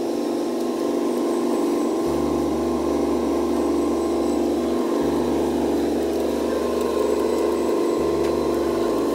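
Tamiya Globe Liner RC truck driving, its drive giving a steady mechanical hum that holds an even pitch.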